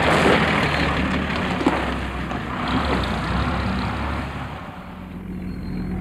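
A motor coach drives past close by. Its engine and tyre noise is loudest in the first second and then fades away. About five seconds in, a steady low hum takes over.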